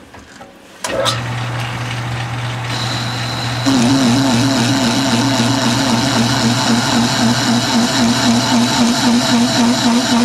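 Metal lathe starting up about a second in and running steadily, with a grooving tool cutting a piston-ring groove into a turned metal piston valve. About three and a half seconds in the sound gets louder, with a wavering tone as the cutter works the groove.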